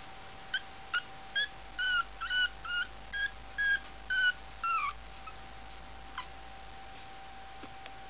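Month-old puppy giving a quick run of about ten short, high-pitched yips over four seconds, the last one sliding down in pitch.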